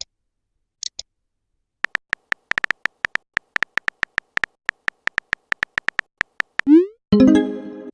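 Smartphone on-screen keyboard typing sounds: a quick, uneven run of short tapping clicks. Near the end a short rising swoosh, the message-sent effect, is followed by a ringing chime.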